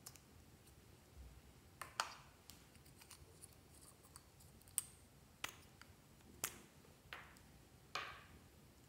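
About six sharp plastic clicks and pops, spaced unevenly over several seconds, as small plastic toy containers are handled and their caps pulled off.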